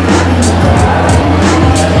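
Background music with a steady beat and a heavy, sustained bass.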